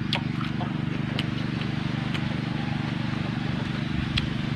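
Crisp crunches of a raw cucumber being chewed and bitten, four sharp crunches about a second apart, the last as a fresh bite is taken near the end. Under them runs a steady low drone.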